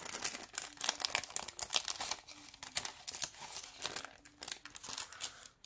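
Clear plastic bag crinkling as hands work an earring card out of it, a run of irregular crackles that dies away near the end.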